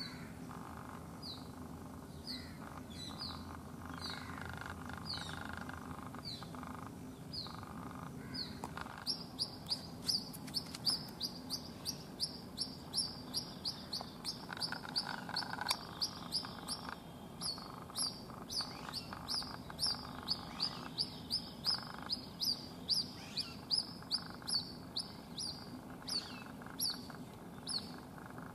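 White-breasted waterhen chick calling non-stop for its mother: short high peeps that slide downward in pitch, spaced out at first, then from about a third of the way in a fast, even run of about two a second.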